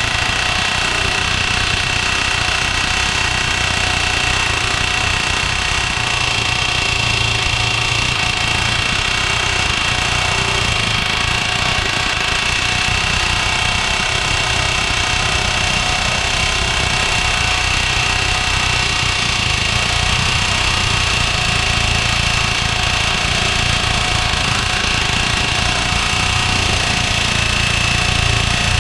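Chicago Pneumatic CP717 air hammer running continuously, its sharp chisel bit hammering rapidly against a steel rivet head on a truck frame rail to cut the rivet off. The rapid blows go on steadily with a constant high-pitched ring over them.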